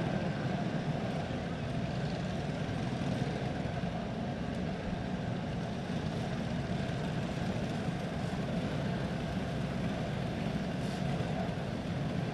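Box-stock Predator kart engines running steadily at low speed under a caution, a constant low engine noise with no revving.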